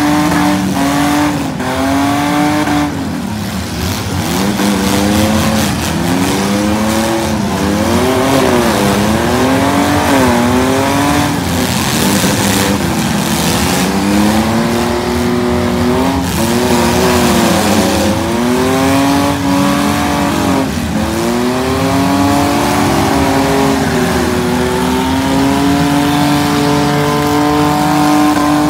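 Several six-cylinder demolition derby cars' engines revving up and down together as the cars drive and push in the arena, with sharp bangs here and there from cars hitting each other.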